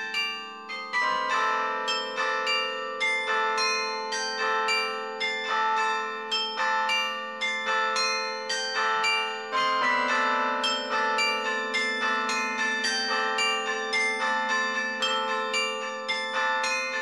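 Carillon bells played from the baton clavier: a steady melody of struck bell notes, about three a second, over lower bells that keep ringing beneath.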